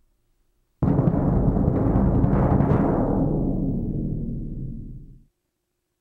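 Concert bass drum played as a single-stroke roll with two matched beaters, a continuous low rumble of rapid strokes. It starts suddenly, grows softer from about three seconds in and cuts off suddenly just over a second later.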